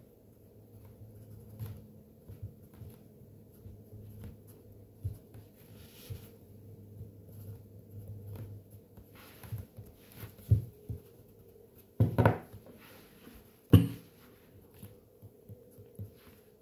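A stylus tapping and scraping on a tablet screen during handwriting, as a scatter of small ticks. Three louder knocks come in the second half.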